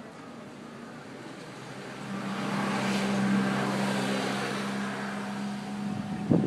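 A motor vehicle passing close by: a steady engine hum with a hiss swells over a couple of seconds, then fades away.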